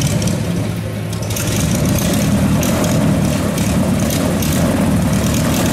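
Airboat running: a steady engine drone that grows louder about a second and a half in.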